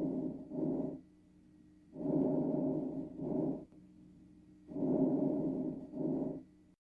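Recorded lung breath sounds: repeating breathing cycles of a longer breath sound followed, after a brief gap, by a shorter one, about every 2.7 s. A faint steady hum runs underneath.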